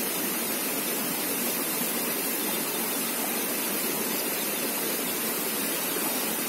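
Steady rush of flowing river water, an even hiss with no breaks or distinct events.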